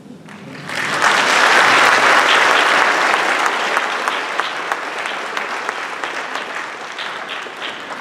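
Audience applauding. The applause swells about a second in and slowly thins to scattered individual claps near the end.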